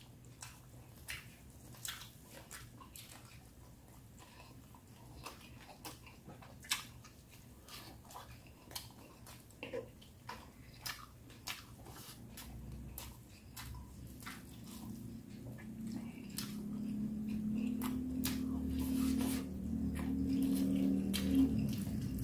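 Soft close-up chewing and wet mouth clicks of a person eating with their hands. In the second half a low hum rises beneath the chewing.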